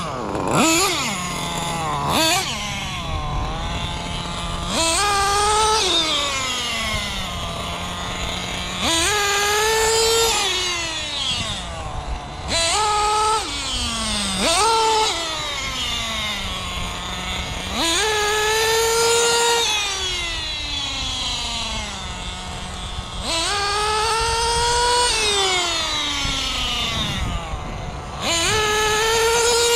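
Kyosho Inferno NEO 3.0 radio-controlled nitro buggy's small engine revving hard and falling away again, over and over, about every four seconds: each burst rises quickly in pitch, then slides down slowly. Between some bursts it settles briefly to a steady idle.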